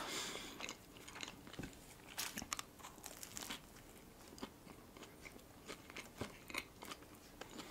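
Close-up soft eating sounds of a sweet pastry bun: a brief soft tearing hiss at the start, then faint bites and chewing with scattered small mouth clicks and crackles.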